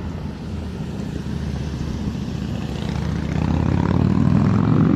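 A motor vehicle's engine running and growing steadily louder, with a pitched engine hum coming up near the end.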